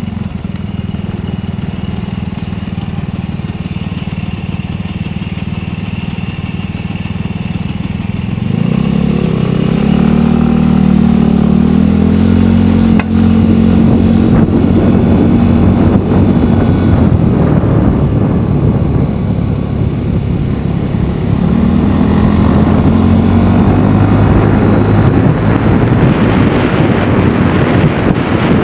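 Genuine Buddy 125 scooter engine running under way, rising in pitch as it speeds up about eight seconds in and again a little past twenty seconds. Wind rushing over the microphone grows near the end.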